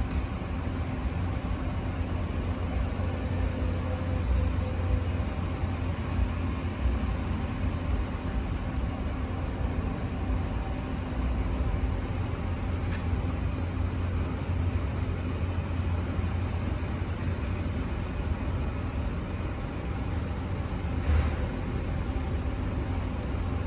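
Steady low rumble with a faint hiss: outdoor urban background noise, with a faint click about halfway through and another near the end.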